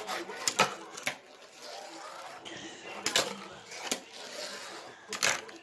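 A fingerboard clacking on a wooden-framed board with a woven mat: several sharp, unevenly spaced knocks, a pair near the start and single ones at about one, three, four and five seconds in.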